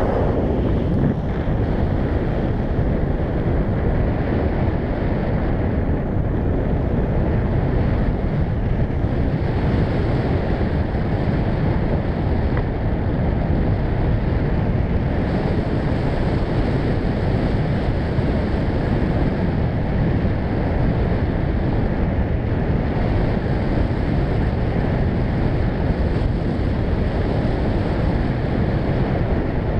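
Steady, loud rush of wind over a GoPro's microphone, from the airflow past a tandem paraglider in flight.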